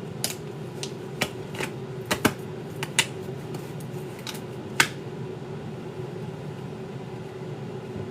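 Light clicks and taps, about ten of them in the first five seconds, over a steady fan-like hum with a single held tone.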